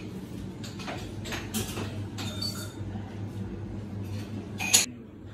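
Breakfast-room ambience: a steady low hum under scattered light clinks and clatter of crockery and cutlery, with one sharp clink near the end.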